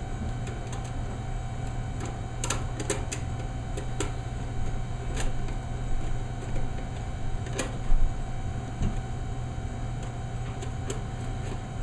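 Irregular clicks and knocks of plastic and metal parts being handled and fitted together while a washing machine's control panel is reassembled, the loudest knock about eight seconds in, over a steady low hum.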